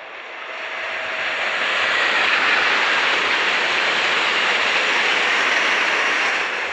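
Renfe AVE Series 102 (Talgo 350) high-speed train passing at speed: a rushing, hissing noise that swells over the first two seconds, holds loud, then falls away near the end as the train goes by.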